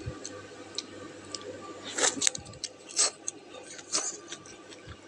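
Someone eating noodle soup: a few short, sharp eating noises about a second apart, from about two seconds in, over a faint steady hum.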